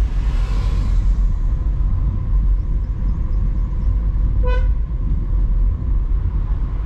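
Steady low rumble of a car on the move, its engine and road noise filling the track. About four and a half seconds in, a vehicle horn gives one short toot.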